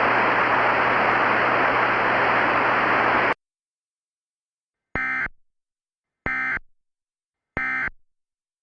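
Radio static with a low hum cuts off suddenly about three seconds in. After a pause come three short, identical digital data bursts about 1.3 seconds apart: the Emergency Alert System's end-of-message (EOM) SAME code, which closes the alert.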